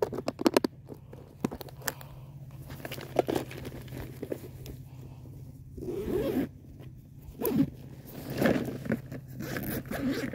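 Zipper on a fabric backpack pocket being pulled in several short runs, with the bag handled between pulls.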